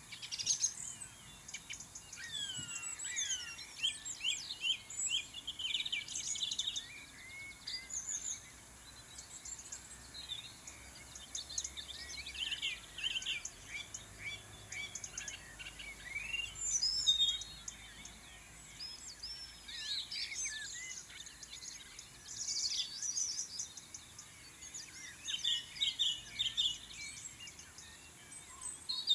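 Several songbirds singing and chirping in quick, overlapping phrases, with short pauses between clusters of calls.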